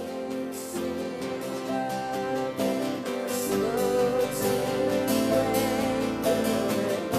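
Worship music from a small band, acoustic guitar and piano, fading in and growing steadily louder.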